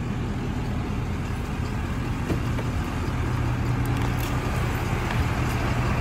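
Ford F-450 Super Duty pickup's engine idling, a steady low hum.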